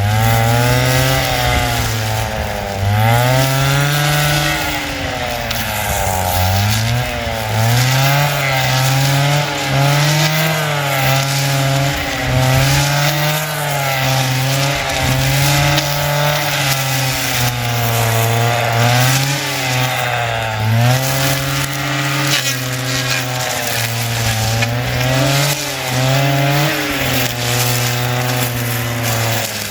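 Stihl FS 160 two-stroke brushcutter running at high revs while clearing undergrowth, its engine pitch dipping and rising again and again as the cutting head takes load and frees up.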